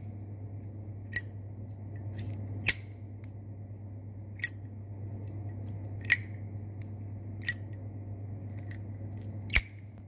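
Zippo windproof lighter's hinged metal lid being flipped open and snapped shut, giving the classic Zippo click six times, about once every one and a half seconds, over a low steady hum.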